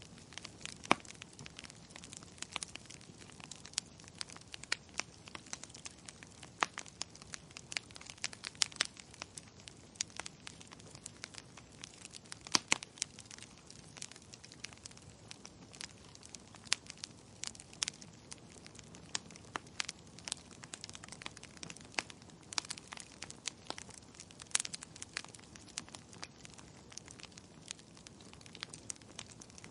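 Wood fire crackling in a fireplace: irregular sharp pops and snaps, several a second, some louder than others, over a faint steady hiss of burning.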